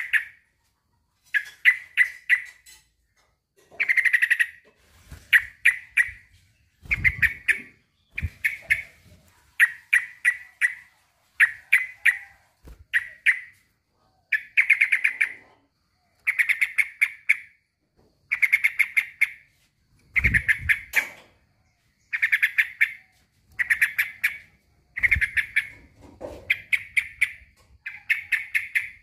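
Male yellow-vented bulbul (trucukan) singing its rival-calling song: short bubbling phrases of rapid notes, repeated about every one and a half seconds.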